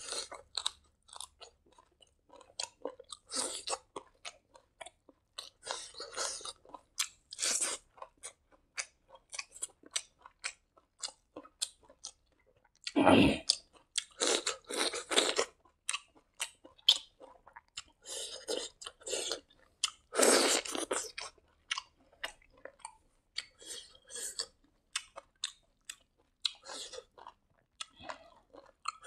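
Close-up chewing of a hand-eaten mouthful of fried rice and raw greens: a run of short wet mouth clicks and crunches, with two louder crunchy bites about halfway through and about two-thirds in.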